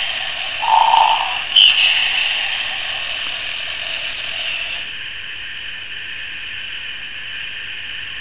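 A knockoff Furby ('Mowgwai') toy gives a short electronic call through its small speaker about a second in, with a sharp click from its eye-and-mouth mechanism. A steady high electronic hiss follows.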